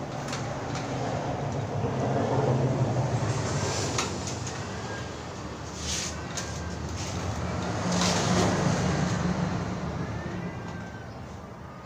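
Steady low background rumble of road traffic, swelling twice as vehicles pass, with a few faint clicks.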